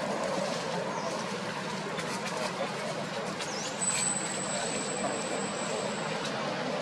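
A steady, mechanical, engine-like rumble, with a thin high steady tone from about four to six seconds in.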